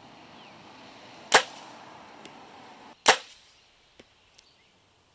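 Two sharp snaps of a bow being shot, about a second and a half apart, each with a short fading ring. A faint tick follows the second shot.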